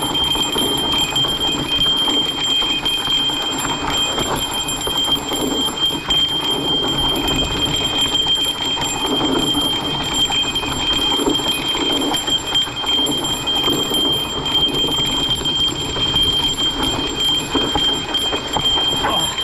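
Growler mountain bike clattering over rough sandstone, its tyres crunching on rock and grit while the frame, chain and components rattle and knock in an irregular stream. A thin steady high whine runs underneath.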